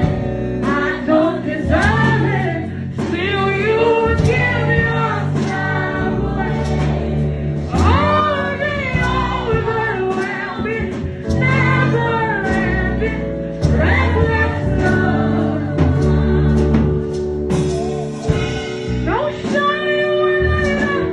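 Gospel worship music: singing voices, with a choir-like blend, over sustained keyboard chords and a steady bass line.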